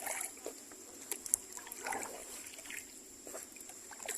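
Kayak paddle dipping into the water, with soft irregular splashes and water trickling off the blade. A faint, steady high-pitched whine runs underneath.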